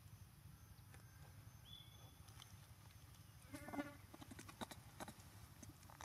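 A macaque gives a short, wavering call about three and a half seconds in, with a few light clicks after it.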